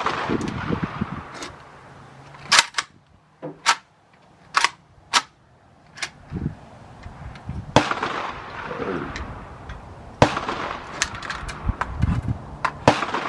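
Single rifle shots at a shooting range, about a dozen sharp cracks spaced irregularly a second or more apart, some loud and close and others fainter.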